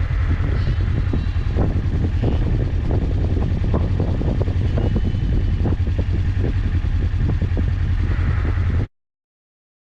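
Tractor engine running steadily with a low rumble and rattling clatter; the sound cuts out abruptly about nine seconds in.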